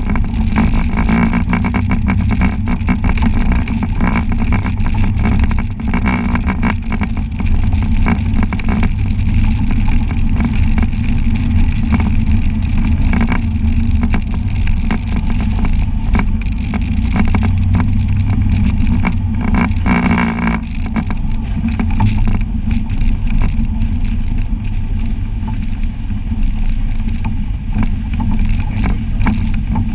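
Side-by-side UTV engine running steadily as the machine drives over a rough, muddy trail, with frequent knocks and rattles from the body and suspension over bumps.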